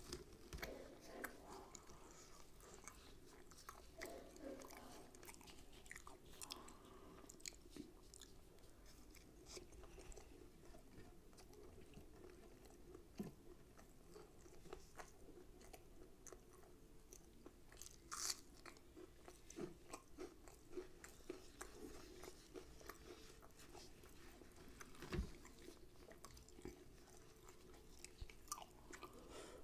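Soft, close-up chewing and mouth sounds of a person eating rumali roti and mutton tikia by hand, with many small clicks and a few sharper crunches.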